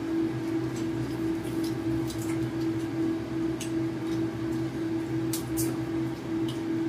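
Steady low hum with a few light clicks and taps from plates and spoons as people eat at a table.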